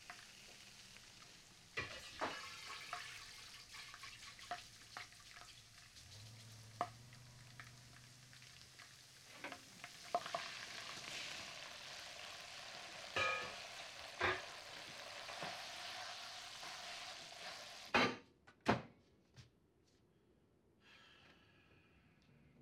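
Spaghetti sizzling in a frying pan on a gas stove as it is stirred and tossed, with scattered clacks of the utensil against the pan. The sizzling stops suddenly near the end, followed by two loud knocks.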